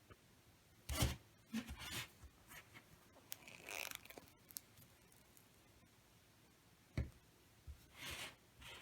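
Handling noises while a foam squishy craft is picked up and shown: soft knocks about a second in and again near seven seconds, with brief rustles and scrapes between them.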